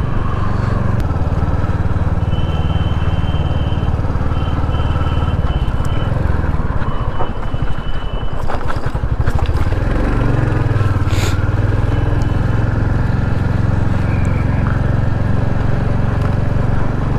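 Royal Enfield Hunter 350's single-cylinder engine running steadily under way. About eight seconds in, the engine note eases and scattered clicks come in as the bike crosses a rough gravel stretch, before the engine settles back to a steady run.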